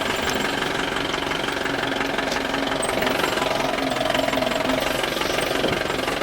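A vehicle engine running steadily with a knocking rattle.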